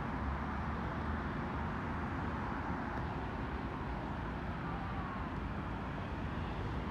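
Steady hum of road traffic: an even wash of passing cars with no single vehicle standing out.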